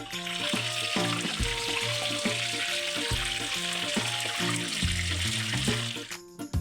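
Battered chicken pieces deep-frying in hot oil, a steady sizzle, over background music with a bass line. The sizzle cuts off about six seconds in, leaving only the music.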